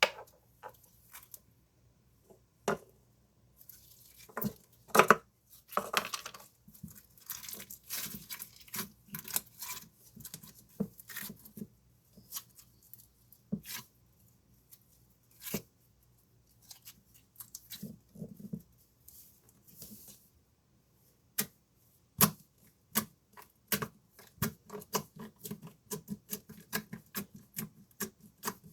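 Slime being squeezed and stretched by hand, giving off irregular sticky crackles, clicks and pops, with a few brief pauses.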